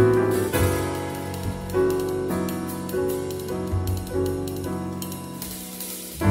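Jazz piano trio recording: acoustic piano playing a series of chords, each struck and left to ring, over low bass notes.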